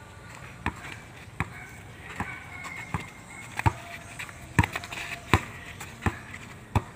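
A basketball being dribbled on packed dirt ground: about nine sharp bounces at an even pace, roughly one every three-quarters of a second.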